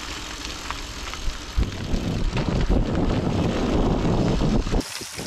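Bicycle tyres rolling and crunching over a gravel road, with wind rumbling on the microphone as the bikes ride along. The sound breaks off abruptly near the end.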